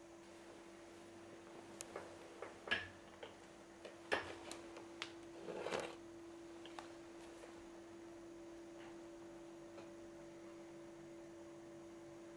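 Handling of a framed picture: a few light knocks and clicks and a short rustle between about two and seven seconds in, over a steady electrical hum.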